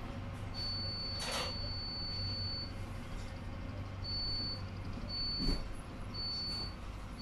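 Interior of a standing Alexander Dennis Trident 2 Enviro400 double-decker bus: the engine idles with a steady low hum, while a high electronic warning beeper sounds one long tone, then short beeps about once a second. Two brief knocks come about a second in and around five and a half seconds.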